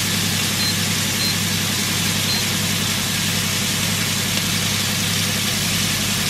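Steady low motor hum, as from a kitchen fan, under an even hiss, while a wok of fried-rice ingredients sits on high heat.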